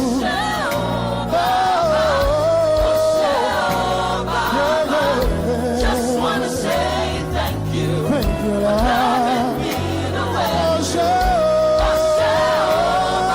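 Gospel worship music: singers holding long, wavering notes without clear words over band backing with sustained bass and a regular low drum beat.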